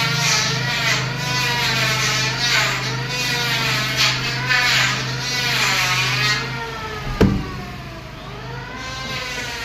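Background music: a wordless melody that rises and falls over a steady low drone. The drone drops out late on, followed by a single sharp click.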